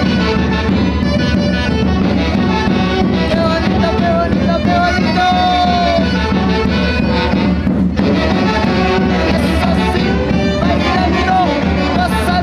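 Latin dance music played by a band, with brass-like melody lines over a steady beat.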